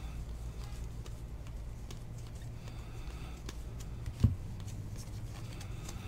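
Trading cards being handled and flipped through, sliding against each other with faint rustles and small clicks over a steady low hum. A single dull thump stands out about four seconds in.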